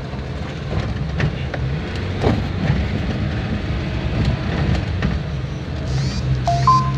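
Car engine and road noise heard from inside the cabin while driving, a steady low hum. Near the end comes a short two-note tone, stepping up in pitch.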